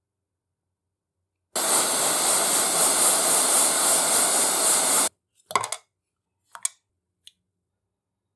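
A loud, steady hiss of rushing air or spray that starts about a second and a half in, lasts about three and a half seconds and cuts off suddenly, followed by three short clicks.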